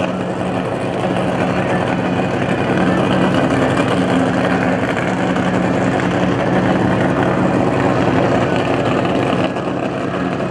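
Nine-cylinder radial engine of a propeller aerobatic plane running steadily in flight overhead, a continuous drone that dips slightly near the end.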